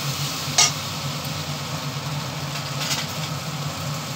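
A metal spatula scraping and knocking against a metal kadai while pointed gourd pieces are stirred in frying oil, with a sharp clink about half a second in and another scrape near three seconds. A steady low mechanical hum runs underneath.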